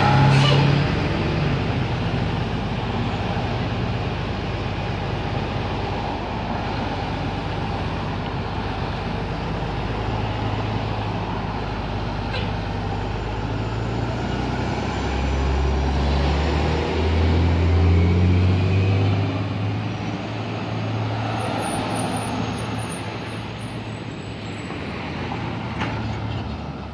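Bus engine running close by with street traffic around it, and a louder, deeper engine rumble for a few seconds about two-thirds of the way through.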